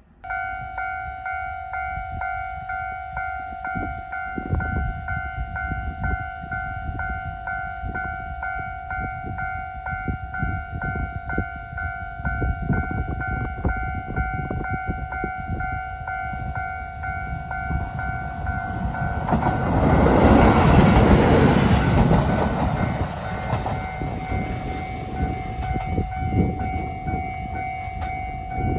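Japanese railway level-crossing alarm starts suddenly, ringing a steady two-tone ding about twice a second. About 19 s in, a diesel train on the single-track, non-electrified line runs over the crossing. Its engine and wheel noise peaks a few seconds later and then eases, while the crossing bell keeps ringing.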